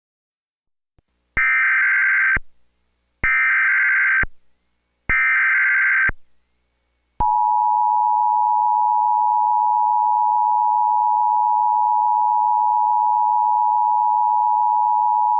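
Emergency Alert System SAME header, three bursts of warbling data tones about a second each, followed by the two-tone attention signal held steady for about eight seconds. Together they announce an emergency alert message about to be broadcast.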